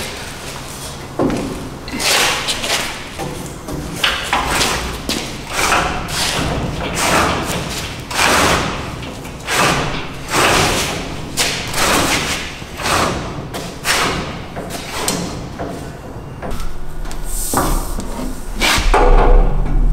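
Irregular thuds, knocks and scrapes, roughly one a second, from steel slide-out room frame parts and a linear actuator being handled and fitted under a truck body. A low steady hum comes in near the end.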